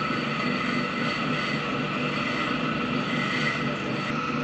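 Electric clipper-blade sharpening machine running steadily while a rusted clipper blade is held against it to be sharpened: an even whirring drone with several held tones over a grinding hiss.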